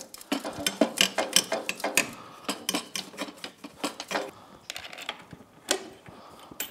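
Rapid metallic clicks and knocks of an aftermarket GYTR exhaust muffler being shimmied onto the head pipe and frame mounts of a Yamaha YFZ450R ATV to line it up. The clatter is dense through the first four seconds, then thins to a few separate knocks.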